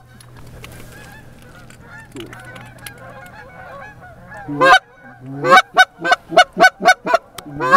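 Geese honking: faint, scattered calls for the first few seconds, then from about four and a half seconds in a loud run of honks, about three or four a second.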